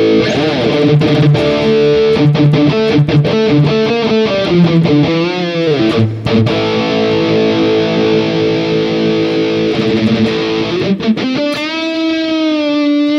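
Electric guitar played through the Mooer Prime S1 modeling unit's amp simulation. A few seconds of quick riffing lead into a held chord, and near the end a note slides up and rings on.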